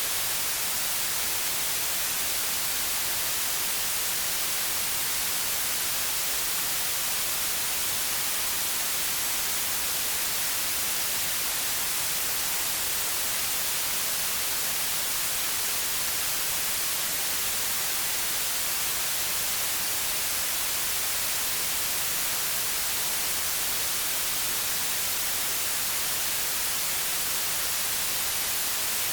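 Steady white noise: an even hiss, brightest in the highs, that does not change.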